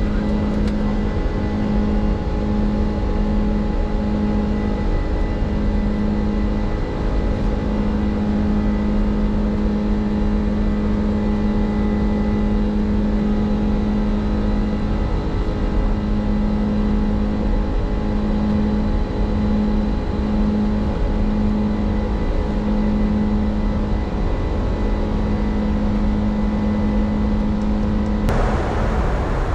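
Steady cockpit noise of an Airbus A310 with its engines running: a dense rumble and rush of engine and air noise with a steady hum that drops in and out, and a sudden change in the noise near the end.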